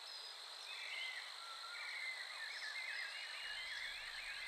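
Forest nature ambience: a steady high-pitched insect drone under a chorus of short, quick chirping animal calls that grows denser after the first second or two.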